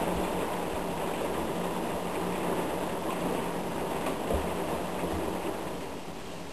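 Heavy thunderstorm rain pouring down, a steady rushing hiss that eases slightly near the end.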